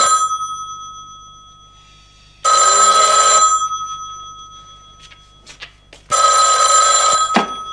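Corded landline telephone ringing: the tail of one ring, then two more full rings about three and a half seconds apart, each a bright bell-like burst of about a second that rings on as it fades.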